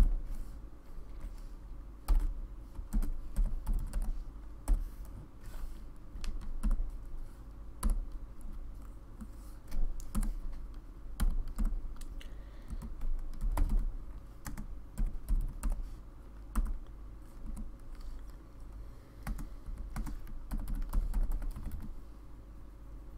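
Typing on a computer keyboard: uneven runs of keystroke clicks with short pauses between them.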